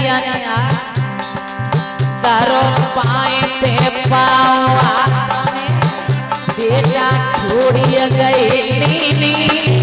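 Devotional bhajan music: a harmonium playing a melody over a steady, quick beat of hand drum and rattling percussion.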